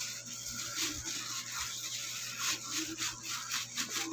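Hand in a thin plastic glove kneading and squeezing a wet mash of tempeh, egg and spices in a steel bowl: a string of irregular soft squishes and rustles.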